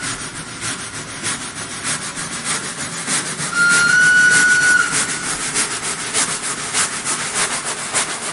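Train running with steady rapid rattling and clacking, and a single high horn note, held about a second, sounding near the middle.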